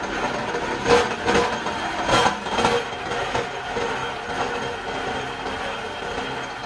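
Rubber granulator running and chopping strips of scrap rubber into crumbs: a steady machine noise with a cluster of sharp cracks and clatter between about one and three seconds in as the strips are fed into the blades.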